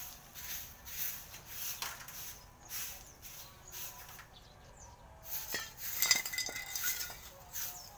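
Soft broom swept over a dirt yard in a steady run of swishing strokes, then a cluster of sharp clinks from swept litter about five and a half seconds in.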